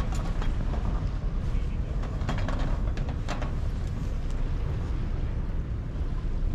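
Open-air waterfront ambience: a steady low rumble with faint voices, and a few sharp clicks or knocks about two to three and a half seconds in.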